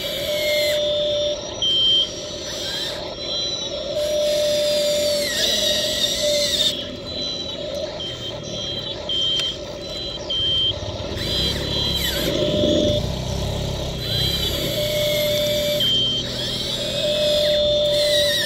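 Radio-controlled model excavator at work: its small electric motors whine in short starts and stops as the boom, arm and bucket move. In the middle, stones rattle as the bucket unloads into a model dump truck.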